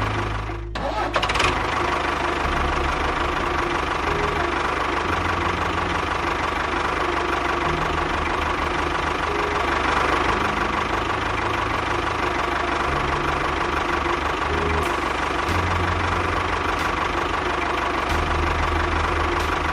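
Mini tractor's engine running steadily with a chugging, knocking rumble, dipping briefly less than a second in.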